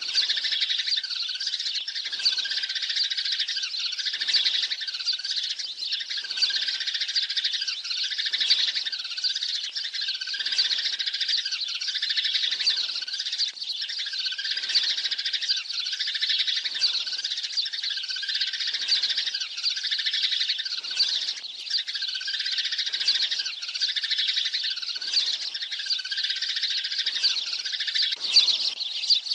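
A flock of sparrows chirping and chattering densely without a break, a pattern that recurs about every two seconds as in a looped recording. It is a sparrow lure call, played to draw a flock to a trap.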